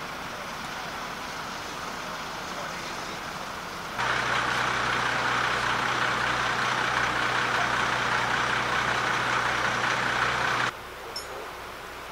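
Steady rush of fast river water around a half-submerged pickup truck, with a low steady engine hum beneath it. It starts suddenly about four seconds in and cuts off abruptly about ten and a half seconds in, with quieter steady outdoor noise before and after.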